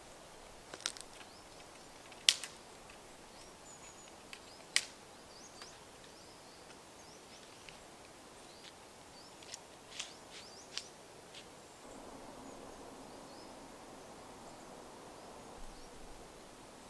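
Scattered sharp clicks and snaps, the loudest about two and five seconds in and a few more near the ten-second mark, with faint bird chirps; a soft hiss comes in for a few seconds near the end.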